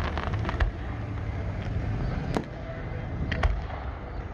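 Aerial fireworks: three sharp bangs of shells launching and bursting, spread over about three seconds, over steady low background noise.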